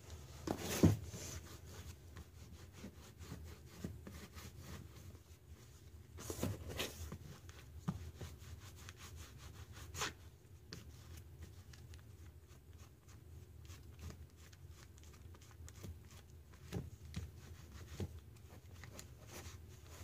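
Paint roller rolling green paint over a canvas: quiet, repeated rubbing strokes, with a few louder short knocks scattered through, over a low steady hum.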